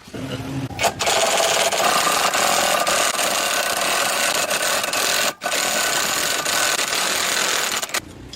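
A power tool running hard with a dense buzzing noise, starting about a second in, stopping for an instant about halfway through, then running on until shortly before the end.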